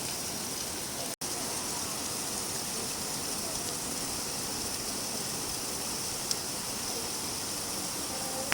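Steady rain falling, a continuous even hiss. The sound cuts out for an instant about a second in, and there is one small tick about six seconds in.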